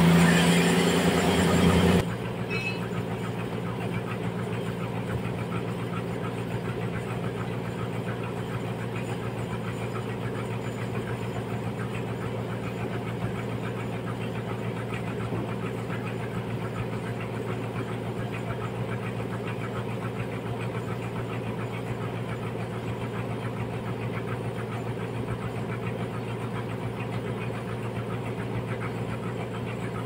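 Large vertical band sawmill running while its blade cuts lengthwise through a big trembesi (rain tree) log: a steady machine hum. It is louder for the first two seconds, then drops abruptly to a lower, even level.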